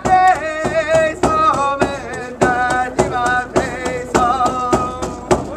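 A man singing a Cree goose dance song over a steady percussion beat of about three strikes a second.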